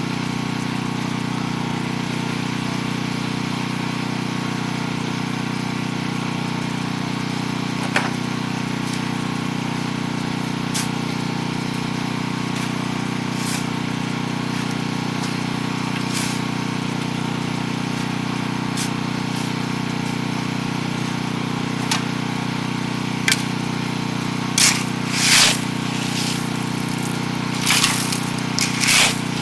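An engine running steadily with an even drone. A few sharp knocks come through, and several short hissing bursts come near the end.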